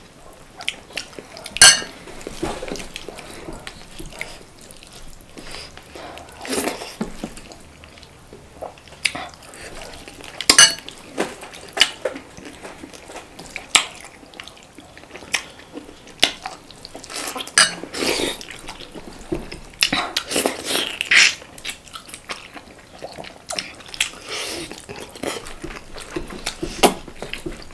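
Eating a chicken curry and dal meal: cutlery clinks and scrapes against a plate, with chewing, as short irregular clicks.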